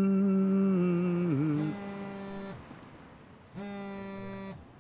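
Held musical tones: a long, loud steady note that dips in pitch just before it ends, then two shorter, buzzier notes of about a second each, the second one near the end.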